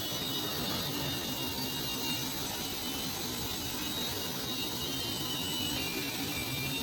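Textile padding machine running steadily: an even mechanical whir with faint high-pitched whines above it.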